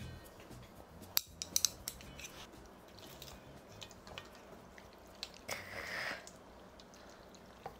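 Wooden chopsticks clicking and tapping while mixing cold noodles in a ceramic bowl, with a few sharp clicks about a second and a half in and softer ticks after. Near six seconds a breathy, appreciative sigh.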